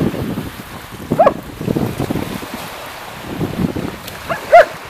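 Wind on the microphone and small waves washing on the shore, with two short, high-pitched barks from an excited dog, about a second in and near the end, the second one loudest.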